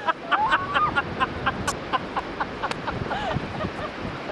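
People's voices in short, repeated bursts, fainter than close speech, over a steady wash of wind and surf.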